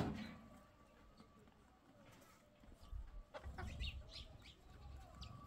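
Hens clucking faintly, with short chirping calls, starting a little under halfway through. Just at the start, the tail of a sharp bang dies away.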